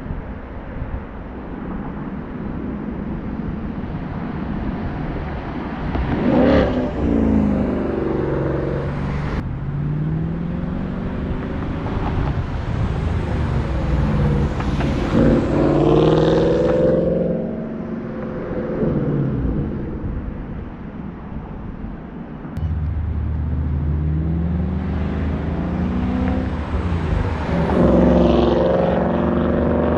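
2015 Ford Mustang GT's 5.0-litre V8 under hard acceleration. The engine note climbs in pitch several times, dropping back in between as it goes up through the gears.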